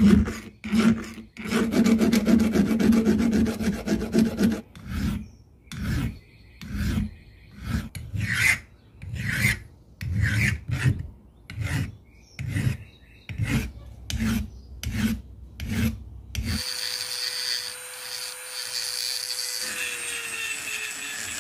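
Hand file rasping on the steel head of a sledgehammer clamped in a vise: fast, continuous strokes for the first few seconds, then separate strokes a little under a second apart. About sixteen seconds in, a small rotary grinder starts up inside the hammer's eye, a steady whine that dips slightly in pitch near the end.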